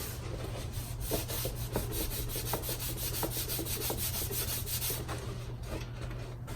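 Cardstock paper petals rubbing and rustling against each other as they are handled and pressed together, with many small scratchy ticks.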